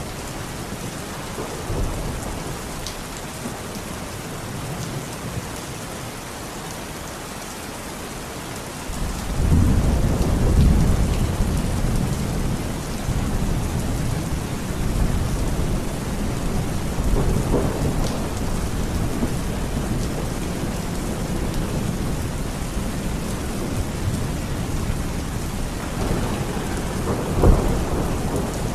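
Steady rain falling, with thunder rumbling low underneath. A long rumble comes in about a third of the way through and stays, and another swells up near the end.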